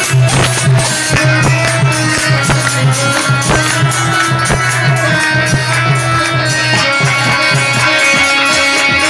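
Loud amplified Indian village folk dance music: an electronic keyboard melody over a steady, driving percussion beat.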